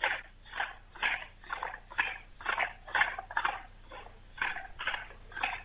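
Wooden pump drill worked for a friction fire: rhythmic rasping strokes, about two a second, as the spindle spins back and forth against the hearth board.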